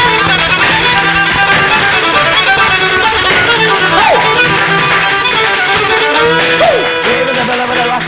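A fiddle leads a lively folk dance tune over a strummed string instrument, with the quick clicks of Irish dance hard shoes tapping on a hard floor.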